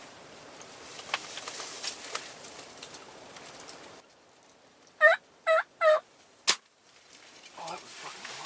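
Three loud turkey yelps in quick succession, about half a second apart, then a single sharp crack about half a second after the last. Before them there is rustling with small clicks.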